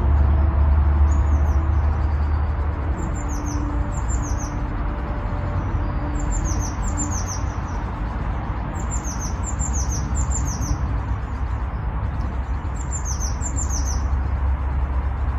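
A small bird singing in short bursts of quick, high, downward-sliding chirps, repeated four or five times a few seconds apart, over a steady low rumble.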